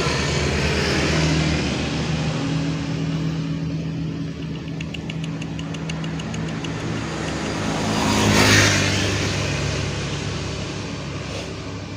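A motor vehicle engine running steadily, growing louder as it passes close by about eight and a half seconds in, then fading away. A fast run of high, evenly spaced ticks sounds briefly in the middle.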